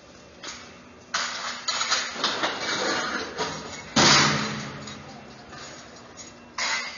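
Steel crowd-control barricades stacked on a trailer rattling and clanking in bursts. The loudest is a sharp metal bang about four seconds in that rings on briefly.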